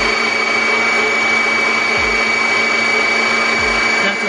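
Singer Heavy Duty sewing machine's electric motor running at a steady high speed, a loud, even whine.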